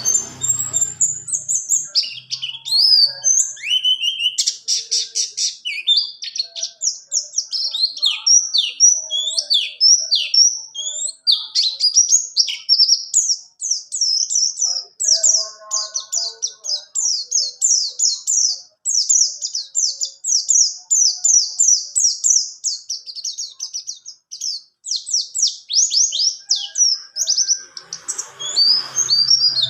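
Pleci buxtoni white-eye singing a long, unbroken song of quick high twittering notes. From about twelve seconds in, the notes run together into a fast rolling series (the 'ngerol' song prized by white-eye keepers).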